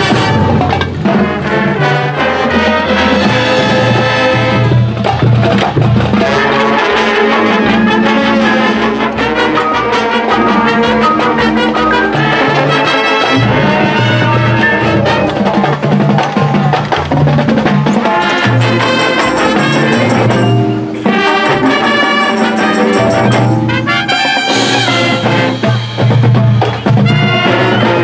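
High school marching band playing its field show: full brass section with trumpets and trombones carrying sustained chords over drums and percussion, with a short dip in volume about three-quarters of the way through.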